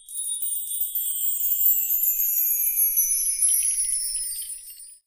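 A high, shimmering chime sound that glides slowly downward in pitch and cuts off suddenly near the end.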